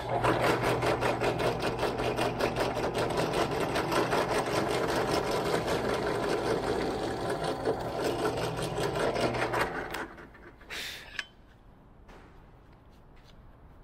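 Benchtop drill press running and drilling the center hole through a metal hinge into a wooden rudder pedal: a steady motor hum with a fast, even clatter. About ten seconds in it is switched off and winds down, followed by a brief clatter.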